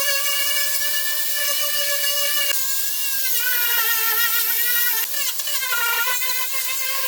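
A small electric power tool, such as a drill or rotary tool, running with a high motor whine. The pitch holds steady at first, then sags and wavers from about the middle on, as the tool is pressed into the work and slows under load.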